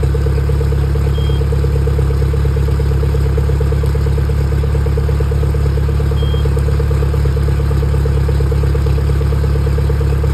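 Suzuki DF140 four-stroke outboard engine idling steadily on flush muffs with its cowling off. It is warming up cold, with its thermostat still closed.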